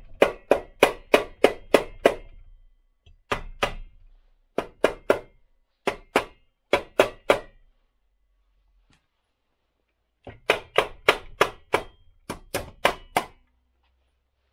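A rubber mallet strikes the metal housing of a 1969 Ski-Doo Olympique's single-cylinder Rotax engine, in quick runs of blows about four a second, each with a short metallic ring. The blows come in groups with pauses between them, and the mallet is working a stuck part loose.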